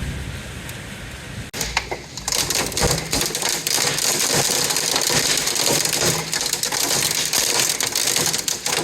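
Hail pelting down in a dense, steady clatter that sets in hard about two seconds in, after a softer rush.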